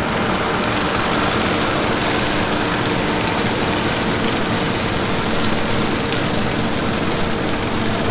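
John Deere 9986 cotton picker running steadily while harvesting in the field: a dense, even machine noise with a faint steady hum, unchanging throughout.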